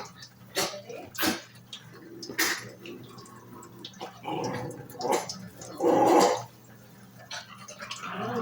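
Lovebird giving a series of short, puppy-like squeaks and whimpers, the longest and loudest about six seconds in.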